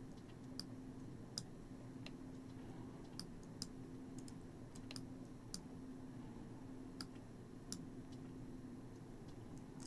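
Scattered soft computer mouse clicks, about one a second at irregular intervals, as the mouse edits a clip gain curve in Pro Tools. A faint steady low hum runs underneath.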